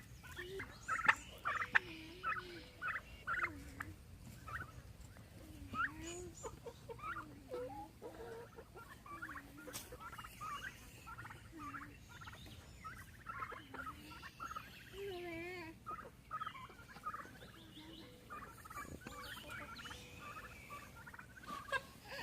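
Domestic turkeys gobbling, many short calls in quick runs with lower, swooping calls mixed in.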